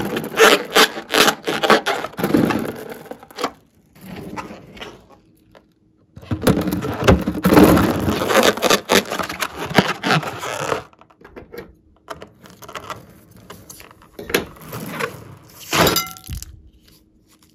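A slime-filled rubber balloon squeezed and worked by hand: dense runs of crackling, squelching clicks, with a short pause between them and scattered clicks afterwards.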